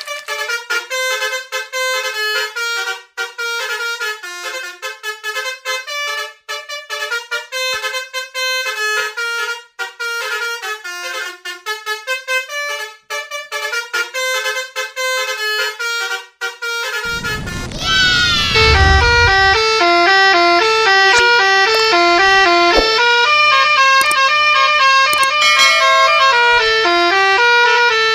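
Telolet Basuri multi-tone horn playing a tune of short, stepped notes. About 17 seconds in, a falling sweep and a low boom; after it the horn melody goes on louder.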